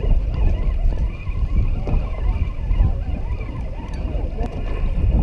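Wind buffeting the microphone in uneven gusts, over the wash of water around a small boat at sea.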